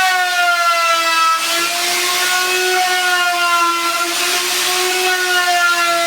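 Electric wood router running at full speed, its high steady whine dipping slightly in pitch a few times as the bit bites into the wood, with a hiss of cutting, while flush-trimming the workpiece along a wooden template.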